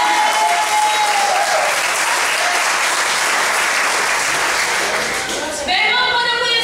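Congregation applauding for several seconds, the clapping easing off a little after about five seconds as a voice over the PA resumes.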